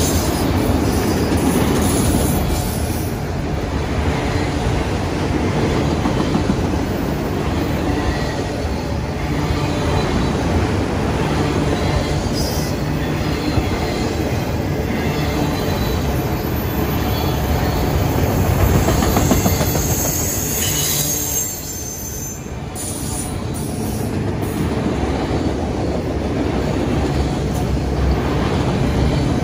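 Freight train of autorack cars rolling past close by: a steady rumble and clatter of steel wheels on the rails, with brief high-pitched wheel squeals, the strongest about two-thirds of the way through.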